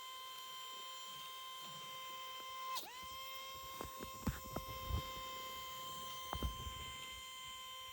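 A steady high electrical whine with several overtones, dipping sharply in pitch and recovering about three seconds in, with a handful of short clicks and low thumps in the middle.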